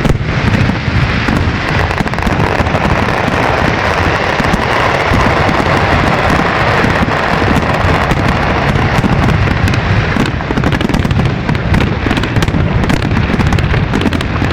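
Fireworks display going off in a dense, continuous barrage: many bangs and crackles overlapping with no gaps, picked up on a cellphone microphone.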